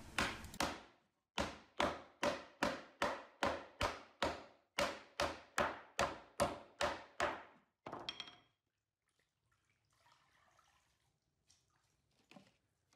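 A mallet striking a plywood drawer as it is knocked together: a few blows, then a steady run of about sixteen quick, even blows, roughly two and a half a second. One last knock comes about eight seconds in.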